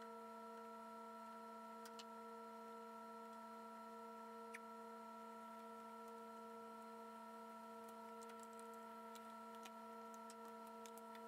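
Near silence: a faint steady hum made of several held tones, with a few faint light clicks, more of them near the end.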